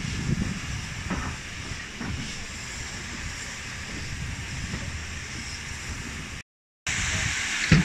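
Train carriage rolling slowly along a station platform: a low rumble with a wheel knock over the rail joints about once a second. After a brief cut, steam hissing, with a sharp knock near the end.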